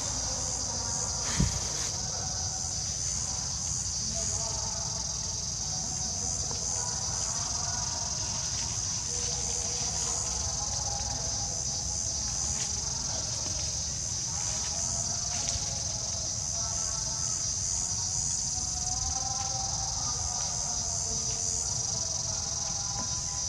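Steady high-pitched chorus of insects droning without a break. A single sharp knock stands out about a second and a half in.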